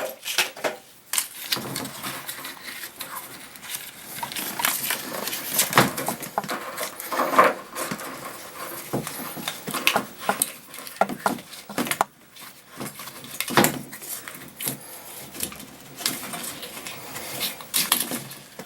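Irregular rustling, scraping and metal clinks of a water heater's new pressure relief valve being worked into its threaded port by hand.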